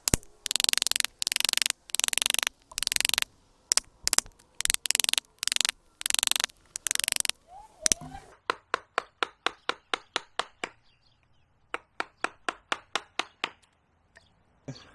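Hand carving gouge working into the wood of a tree trunk: about a dozen short scraping cuts at a steady pace, then two runs of quick sharp taps, about three or four a second.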